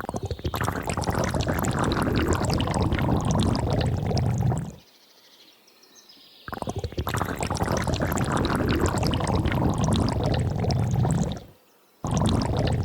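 Water pouring and splashing in three long stretches, each a few seconds, with short breaks between them.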